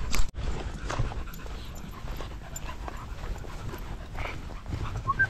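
Several small dogs panting.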